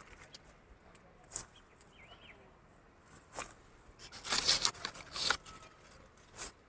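Scattered rustling and crunching noises, with a dense cluster of them about four to five seconds in.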